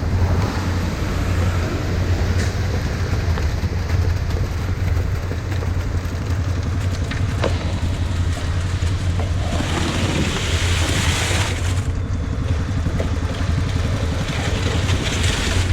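Heavy diesel engine, most likely the ready-mix concrete truck at the pour, running steadily with a deep drone. Two spells of rushing noise come over it, one about ten seconds in and one near the end.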